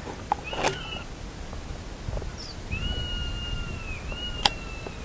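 Golden eagles calling: three thin whistled calls, the first short and the next two each held about a second and slightly falling. They are the eagles' protest at an intruder near their home. A sharp click sounds near the end.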